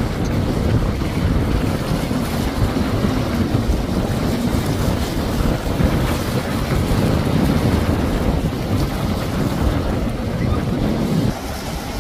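Personal watercraft running at speed through choppy water, with wind buffeting the microphone and surf under it. The sound drops suddenly near the end.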